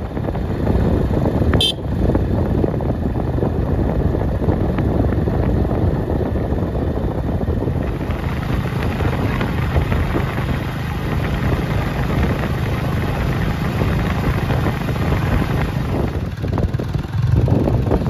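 Motorcycle engine running while the bike is ridden along a road, with wind rushing over the microphone. A brief sharp click comes about two seconds in.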